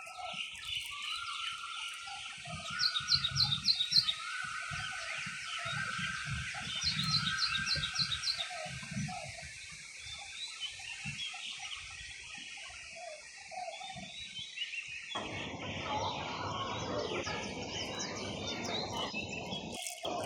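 Small birds chirping, with quick high trills repeated every few seconds over a steady high hiss of background nature ambience. About fifteen seconds in, a broad rushing noise joins them.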